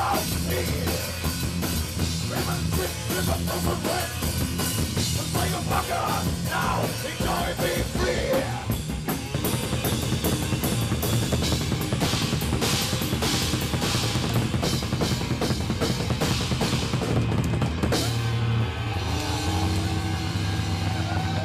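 Instrumental heavy metal passage: fast, dense drum-kit playing with kick and snare under guitars and bass. About 18 seconds in, the drumming drops away and held guitar chords ring on.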